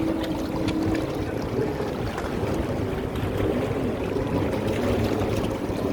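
Steady low rumble of wind and sea water, with a faint motor hum under it.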